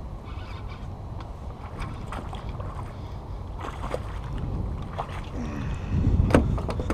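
Steady low rumble of wind on the microphone, with a few short ticks and knocks scattered through it. It grows louder with bumping handling noise about six seconds in.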